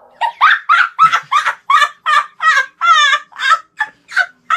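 A boy laughing hard in a rapid string of short, high-pitched bursts, about three or four a second.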